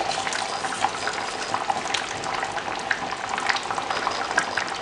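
Thickened Kerala fish curry simmering in a clay pot on the stove: a steady bubbling with many small irregular pops.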